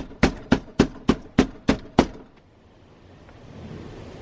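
Rapid banging on a door, about eight hard knocks in two seconds, then it stops.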